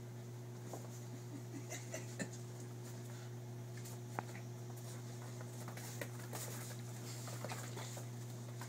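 A dog and a raccoon scuffling in play-fight: scattered light clicks and scrapes, with one sharper click about four seconds in, over a steady low hum.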